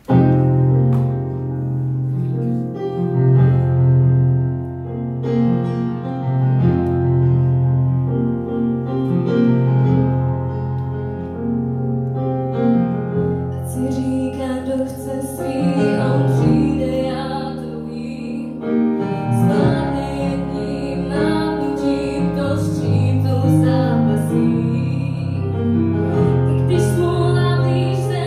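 Piano accompaniment starts suddenly with slow, sustained chords; about halfway through, a woman begins singing a slow song over it into a microphone.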